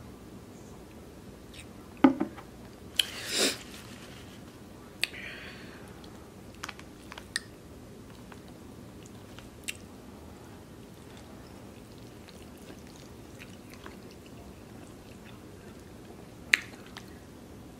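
Close-miked eating sounds: chewing and mouth smacks with scattered sharp clicks. The loudest cluster comes about two to three and a half seconds in, and there is another sharp click near the end.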